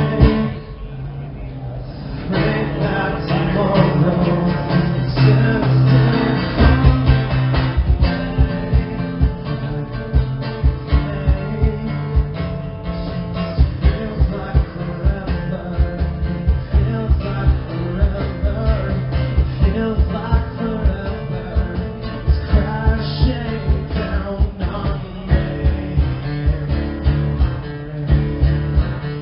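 Live acoustic rock band performance: acoustic guitars and singing, with a steady beat that comes in about seven seconds in.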